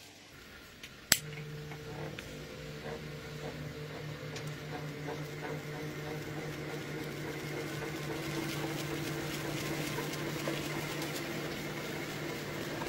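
Sharp click about a second in, then the ceiling-fan motor driving a model helicopter's rotor starts up: a steady low electric hum with the blades swishing air, growing gradually louder as the rotor spins up.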